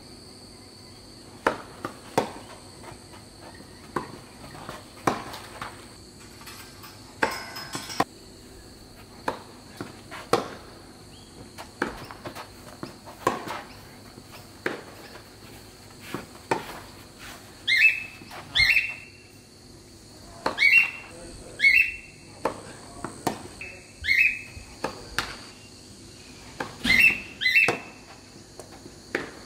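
Tennis balls struck back and forth with racquets in rallies, a sharp hit every second or so, over a steady high insect drone. From about halfway in, a bird calls with repeated short chirps, louder than the hits.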